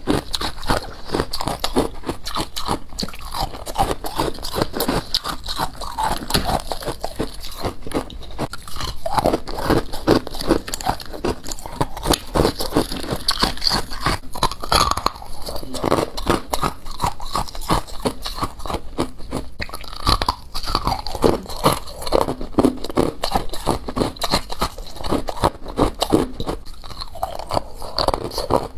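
A person chewing and crunching mouthfuls of humidifier frost, a dense run of rapid crackling crunches, close up.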